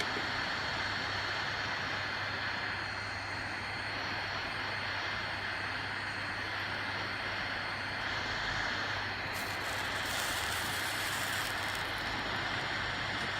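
Hot-air soldering station's blower running steadily at high heat: a constant airy hiss with a faint high whine, and a brief patch of sharper hiss about nine to twelve seconds in.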